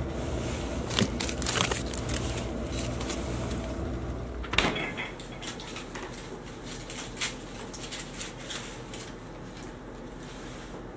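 Someone rummaging in a refrigerator: things are handled on the shelves with scattered clicks and rustles over a low hum, then a single loud knock like the fridge door closing about halfway through. After it comes the faint crinkle of food being unwrapped.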